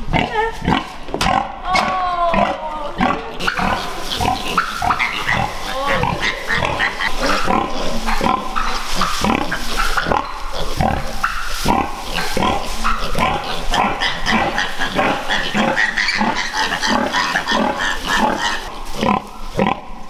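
A domestic sow and her piglets grunting in a rapid run of short calls, with a few higher squeals in the first few seconds and straw rustling under them.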